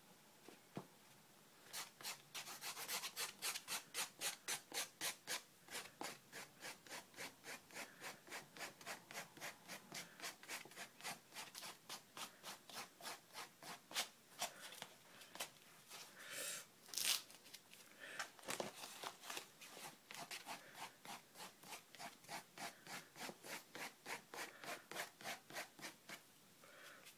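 Brush strokes scrubbing quickly back and forth on wet watercolour paper, a dry scratchy rubbing about three to four strokes a second, raking in streaky grass texture. A few strokes about halfway through are louder.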